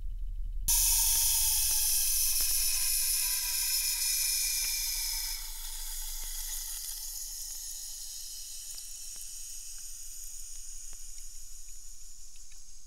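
Sudden hiss of high-pressure water bursting into a GoPro HERO 12 housing inside a pressure-test chamber as the front lens gasket fails at about 214 m of simulated depth. The hiss falls in pitch as the pressure drops, then eases to a softer fading hiss about halfway through.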